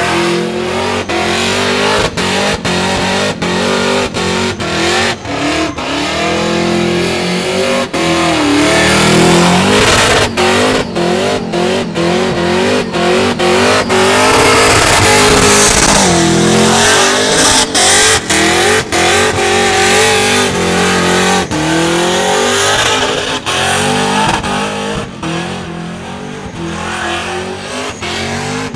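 Supercharged V8 of a Holden VL Commodore revving hard through a burnout, its note climbing and dropping over and over, over the rush of rear tyres spinning and smoking on the pavement. It eases off somewhat near the end.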